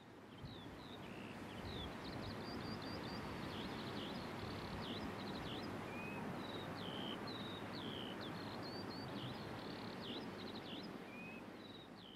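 Small birds chirping: many short high calls, some sliding down in pitch, repeating over a steady background hiss that fades in over the first couple of seconds.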